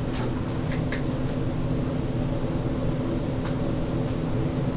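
Steady low droning hum, with a few faint clicks in the first second and a half and one more later on.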